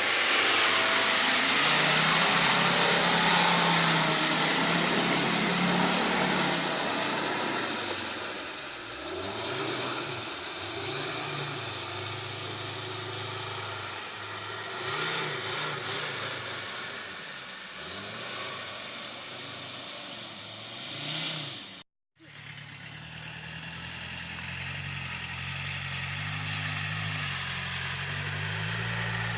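Diesel 4x4 engine working off-road, revving up and down again and again as the vehicle pushes through rough ground, with a loud hiss in the first few seconds. The sound drops out abruptly for a moment about two-thirds of the way through, then the engine carries on at a steadier pitch.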